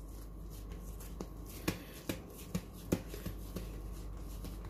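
Hands shaping a ball of soft yeast dough on a countertop: rubbing and tucking the dough, with a series of short light slaps and pats from about a second in.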